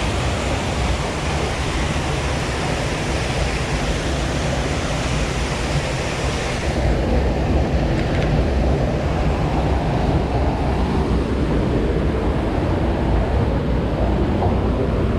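Steady rushing roar of a waterfall, with a deep rumble underneath. About halfway through the hiss loses its top end and the sound gets a little louder.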